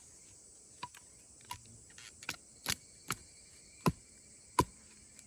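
A steady high insect chirring, with a series of seven sharp knocks at uneven intervals growing louder, the last two the loudest.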